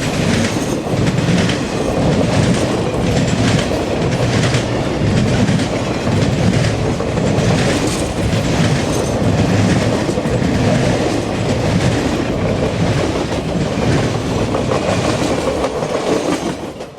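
Freight train cars rolling past, a steady rumble with repeated clickety-clack of wheels over rail joints. The sound cuts off abruptly at the end.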